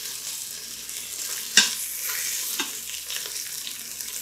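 Beef chuck roast searing in hot olive oil in an electric pressure cooker's stainless pot, a steady sizzle. A sharp clack of metal tongs comes about one and a half seconds in, and a lighter one a second later.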